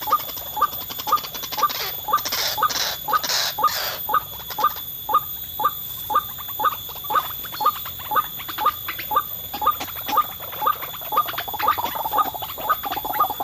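White-breasted waterhen calls: a short, sharp note repeated steadily, about twice a second. A few bursts of hissy noise come two to four seconds in.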